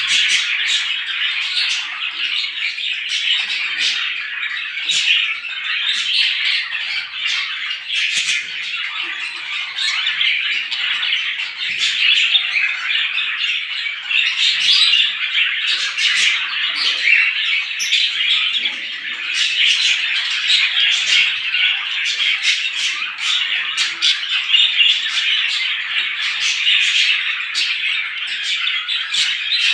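A flock of small birds chirping and chattering all at once, a dense, continuous din of many overlapping short calls.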